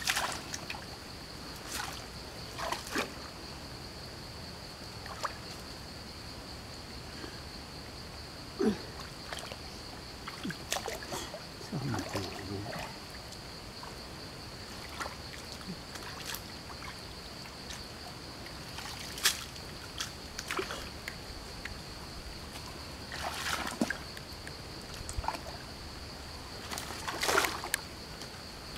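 Shallow stream water splashing and sloshing now and then as hands and legs move in it while a fish trap is set among sticks. A steady high-pitched whine runs underneath.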